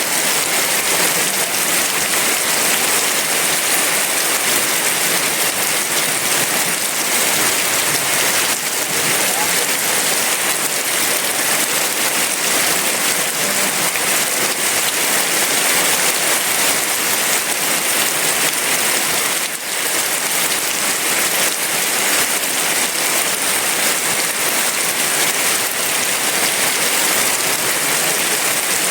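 Heavy rain falling steadily, a dense, even hiss of drops on leaves and ground.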